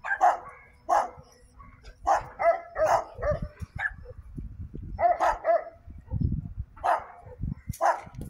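Dogs barking: short, sharp barks, singly and in quick runs of two or three, with brief pauses between.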